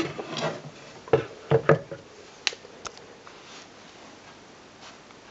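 Handling noise: a brief rustle, then three sharp knocks in quick succession a little over a second in, followed by two lighter clicks.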